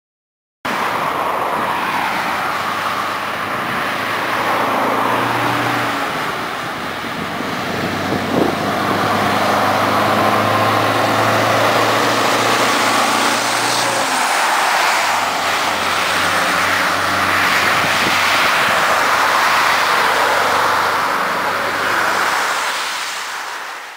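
Scania 143M 420 truck's V8 diesel pulling away and accelerating, its engine note shifting in steps a few times as it goes through the gears, over steady road and traffic noise.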